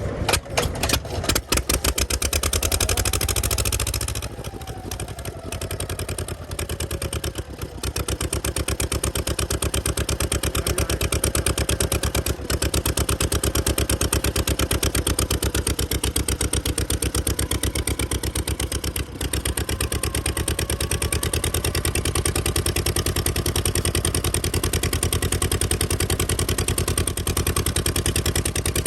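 Daikin DS-type two-cylinder kerosene engine running with a rapid, even firing beat. It runs unevenly for the first several seconds, then settles into a steady run.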